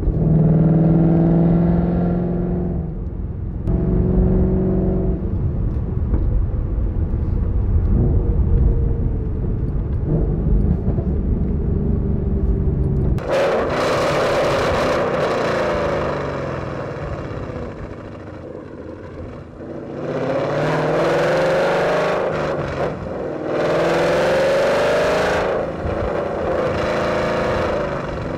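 2012 Ford Mustang GT's 5.0 Coyote V8 exhaust, with Borla long-tube headers, an X-pipe and an ATAK axle-back and the resonator deleted, running loud while driving. First comes a steady drone, then, heard close at the tailpipe from about halfway, two hard accelerations with the pitch rising each time and a short lift between them.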